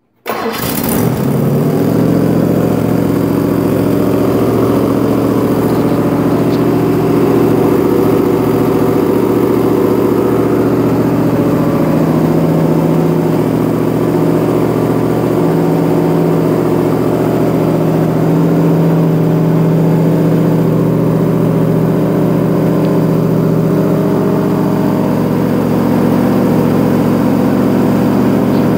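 Oldsmobile 455 big-block V8 on an engine run stand starting for the first time: it fires almost at once and then runs steadily, the first start after being built.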